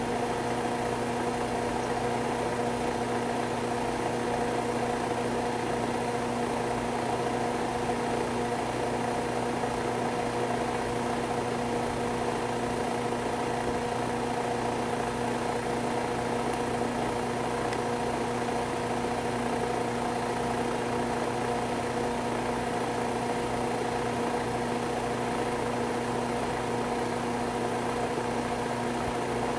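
Steady hum of a running machine, several constant tones at an even level with no change.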